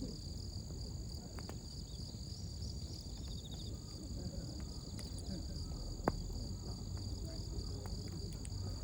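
Crickets chirring steadily in two high, even pitches over a low campfire rumble, with scattered small crackles and one sharper pop from the fire about six seconds in.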